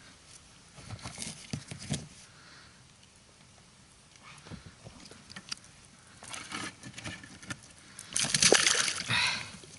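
Water sloshing and splashing against a small fishing boat, with small knocks and splashes, then a louder burst of splashing about eight seconds in.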